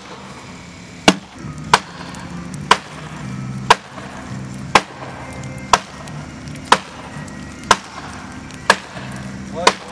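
Axe chopping wood: about ten sharp blows at roughly one a second.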